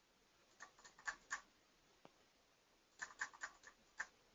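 Faint clicking at a computer: two short runs of quick, light clicks, the first about half a second in and the second about three seconds in, with near silence between.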